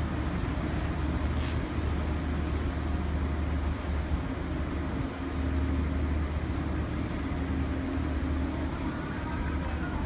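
A train rumbling steadily across a steel railway bridge, a low continuous rumble with a hum over it.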